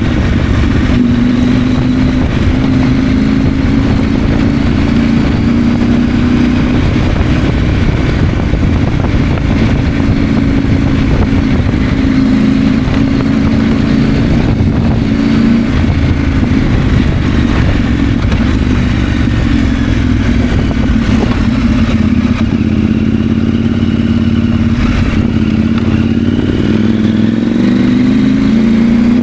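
KTM 890 Adventure's 889 cc parallel-twin engine running under way, its pitch rising and falling in steps with throttle and gear changes, over a steady low rush.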